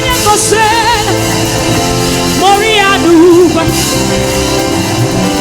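Live gospel music: a woman singing with vibrato over a band playing steady held chords.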